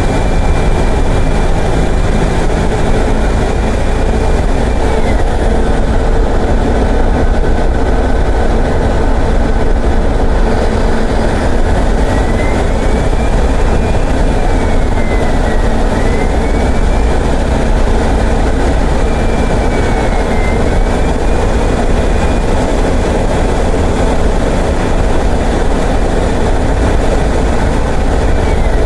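Mercedes-Benz OF-1418 bus diesel engine pulling under load. It has a loud low drone and a high whine that rises and falls with engine speed: the revs drop about five seconds in, build again, drop sharply at about sixteen seconds as the gearbox shifts, then build and hold with a brief dip near twenty seconds, and fall again at the end.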